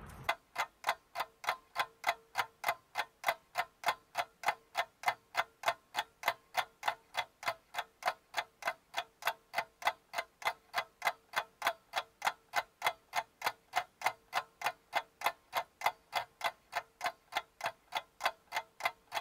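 Clock-ticking sound effect: evenly spaced sharp ticks, between two and three a second, over a faint steady tone, with no room sound between the ticks.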